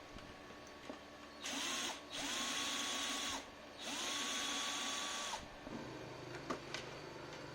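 Electric drill-driver running in three short bursts, each spinning up to speed, holding steady and winding down, with a few light clicks afterwards.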